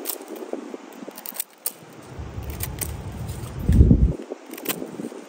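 Morakniv Companion Spark knife whittling a stick of wood: a run of short, sharp shaving and scraping cuts of the blade on the wood. A low rumble swells briefly past the middle and is the loudest sound.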